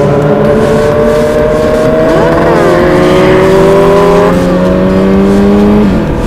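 Motorcycle engine running under load, its pitch climbing steadily as the bike accelerates for about four seconds. About two to three seconds in, other engines' pitches sweep up and down across it. The pitch then steps down and falls away just before the end as the throttle comes off.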